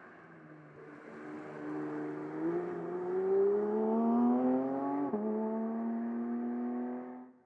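Porsche 911 GT3 Touring (992) 4.0-litre flat-six accelerating: the engine note rises steadily for about four seconds, drops sharply with an upshift about five seconds in, then rises gently again before cutting off near the end.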